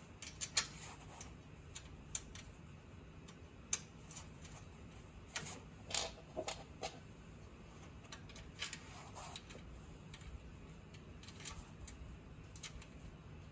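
Light, scattered metallic clicks and clinks of small bolts, nuts and tools being handled while bolts are put back into a metal pole-mount clamp. The clicks come at irregular intervals, a few with a short ring, and the sharpest is near the start.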